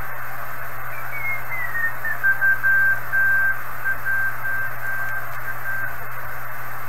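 Kenwood TS-430S HF transceiver's speaker giving steady band hiss while being tuned on the 20-metre band. About a second in, a Morse code tone slides down in pitch as the dial turns onto it, then keys on and off at one steady pitch until near the end. The receiver is picking up signals normally again now that its bad relay contacts are fixed.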